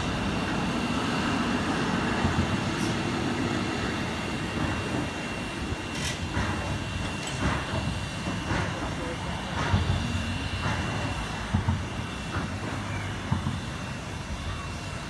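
Steam locomotive moving slowly off a turntable, with a string of short, sharp steam-exhaust chuffs about a second apart from about six seconds in. Underneath are a steady rumble of steam, a thin steady high tone and the murmur of a large crowd.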